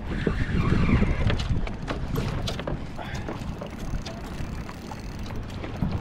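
Wind buffeting the microphone over water slapping against a kayak hull, with scattered sharp clicks and knocks throughout.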